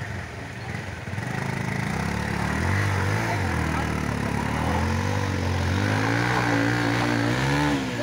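Motorcycle engine revving up and down under load as it labours through deep mud and rocks, its pitch rising and falling and climbing toward the end.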